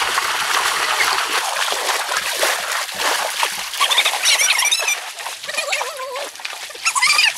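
Water splashing and trickling, then several short, high, wavering animal calls from about four seconds in, with more near the end.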